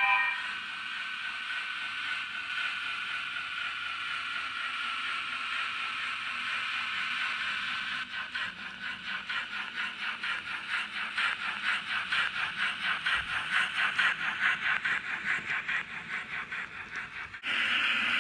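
H0-scale model steam locomotive's running sound: a steady steam hiss, then rhythmic chuffing at about five beats a second. The sound cuts off abruptly near the end, and a louder hiss follows.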